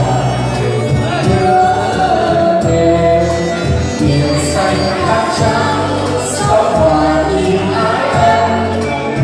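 Karaoke singing: amplified voices singing through microphones over a backing track with a steady bass line, played through PA loudspeakers.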